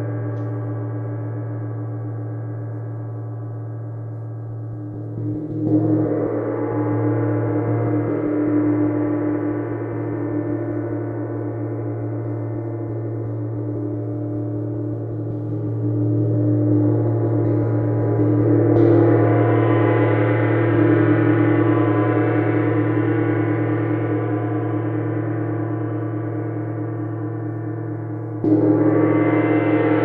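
A 24-inch Paiste Symphonic gong rings in a long, sustained wash of many overlapping tones. It is struck again about five seconds in and near the end, and swells louder through the middle.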